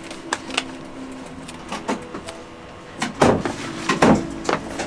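Handling noises of a leather boot and a sheet of black rubber sole material being picked up and fitted together: scattered short knocks and rubs, the two loudest a little after three seconds in and at about four seconds in, over a faint steady hum.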